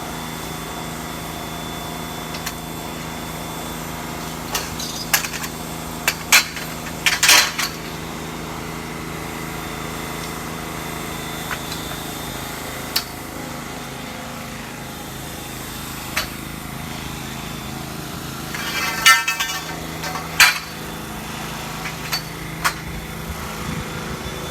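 Metal tent-frame poles knocking and clinking as they are pushed into their fittings: scattered clanks, with clusters of knocks about seven seconds in and a rattling run of them near nineteen seconds. A steady motor hum runs underneath.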